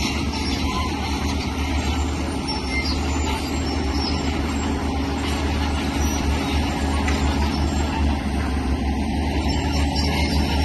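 Heavy earthmoving machinery working: a large diesel engine runs steadily under load, with a low, even drone and a rough clatter above it.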